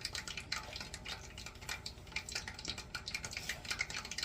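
Small electric deep fryer's hot oil crackling and popping in quick, irregular ticks.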